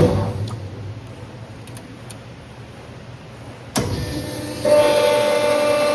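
Dicom vertical cardboard baler working through its hydraulic press cycle: a sharp clunk as the machine stops and its hum dies away, a few quieter seconds, another clunk, then the electric pump motor starts again and runs with a steady whine.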